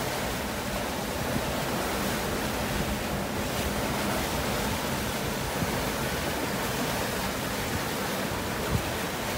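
Steady rush of wind and water as a 55-foot sailing yacht runs fast under sail, waves and spray washing along the hull, with wind on the microphone.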